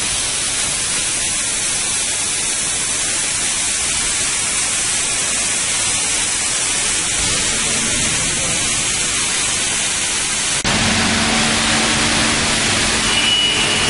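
Steady hiss with no clear pattern. About ten and a half seconds in it steps up suddenly in level, and a low hum joins it.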